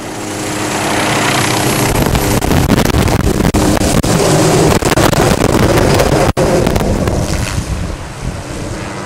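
Small helicopter lifting off close by and passing overhead, its rotor and engine noise building over the first two seconds, with rotor wash buffeting the microphone, then fading as it flies away.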